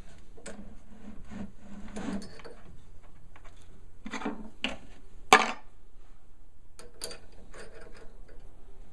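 Drill bit being changed in a drill press: the chuck worked with its chuck key and bits handled, a run of small clicks and rubs with one sharp click about five seconds in.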